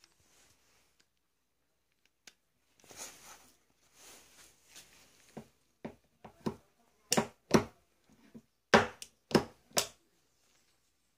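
Antique double-barrelled garrucha pistol being handled: a little rustling, then a run of about eight sharp metallic clicks over four seconds, the loudest near the end, as its hammers are cocked and snapped.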